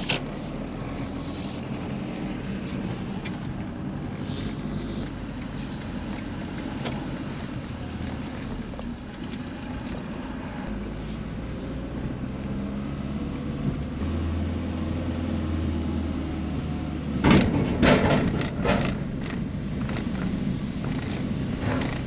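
A vehicle driving slowly, heard from inside: a steady low engine and road rumble whose engine note shifts partway through. About seventeen seconds in there is a brief cluster of loud knocks and rattles.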